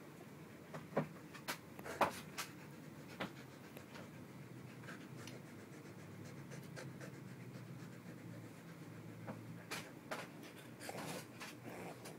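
A husky panting faintly, with scattered short clicks and rustles as the dog and a rabbit move on the bedding, a cluster of them in the first few seconds and another near the end.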